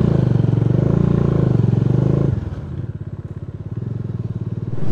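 Motorcycle engine running with a steady pulsing beat; the throttle eases off about two seconds in and the engine runs quieter, then picks up again near the end.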